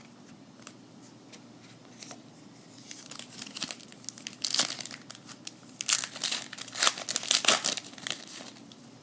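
Trading card pack wrapper being torn open and crinkled by hand: a few faint clicks, then a run of irregular crackling bursts, loudest in the second half.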